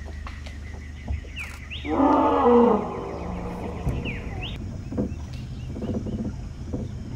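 A Borneo pygmy elephant gives one loud, pitched roaring call about two seconds in, lasting about a second and dropping in pitch at its end. A steady low hum runs underneath, with a few short rising whistles and light splashes around it.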